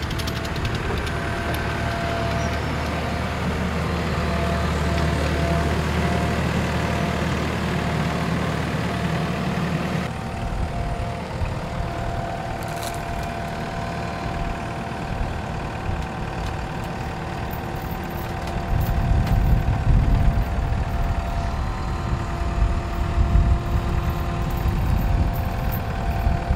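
Compact track loader's diesel engine running, with a steady high whine over it, as the machine lifts and carries a load on its forks. It grows louder and rougher in the last third.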